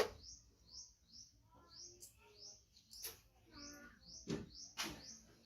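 A bird chirping, a short rising high note repeated about twice a second, with a few sharp knocks at the start and near the end.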